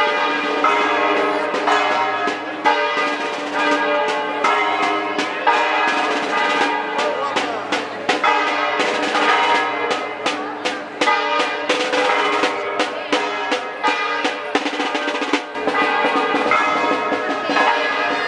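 Church bells pealing together with rapid drumming from the procession.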